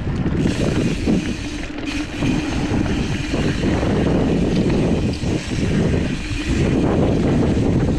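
Wind rushing over the camera microphone together with the mountain bike's tyres rolling over dirt singletrack, a steady loud rush with small dips in level.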